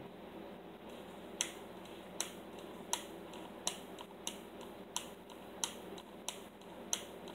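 Lotion pump bottle pressed over and over, giving a sharp click about every three quarters of a second, nine times.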